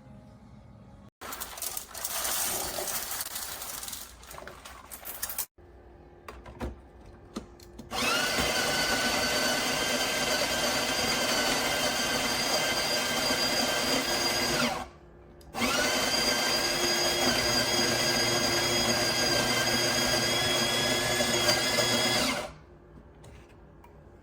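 Built-in conical burr grinder of a De'Longhi La Specialista Arte espresso machine running: a steady motor whine in two runs of about seven seconds each, with a short break between. A few seconds of irregular noise come before it.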